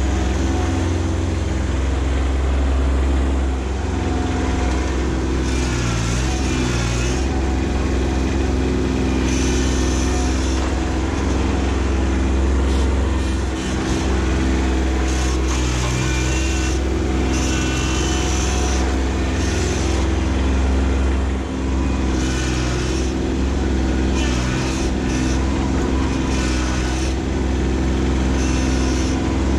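Kubota B2601 compact tractor's three-cylinder diesel engine running steadily under load while its front loader digs and pushes soil, its pitch dipping briefly about six seconds in.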